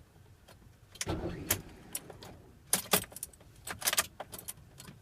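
Keys jangling, with sharp clicks and rattles in several short clusters and a brief low rumble about a second in.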